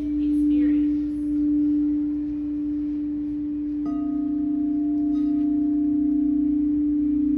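Crystal singing bowls ringing: one bowl holds a steady low tone, and about four seconds in a second, slightly lower bowl joins it, so the two tones beat together in a fine, even pulse.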